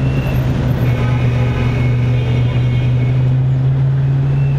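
Car engine running steadily at low road speed: a constant low drone that holds one pitch throughout.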